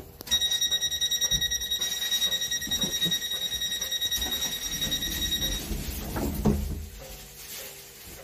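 Train door warning alarm: a high electronic beep pulsing rapidly, about six or seven times a second, for about five seconds before cutting off. A low rumble and a single thump follow near the end.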